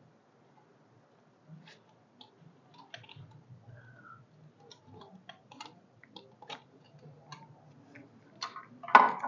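Scattered light clicks and taps of small parts and tools being handled during engine work, with a louder clatter near the end.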